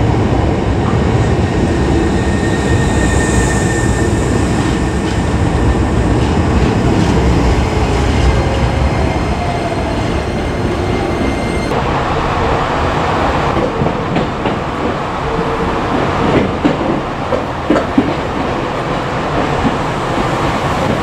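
Hankyu 5300 series electric train pulling out and gathering speed, heard on board: a steady rumble of motors and wheels on the rails. In the second half the wheels clatter over rail joints and points in a run of sharp clicks.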